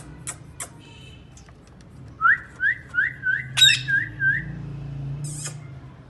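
Indian ringneck parakeets calling: a quick run of about seven short rising whistled chirps about two seconds in, with a sharp screech cutting into them. A harsher screech follows near the end. Two sharp clicks come at the start.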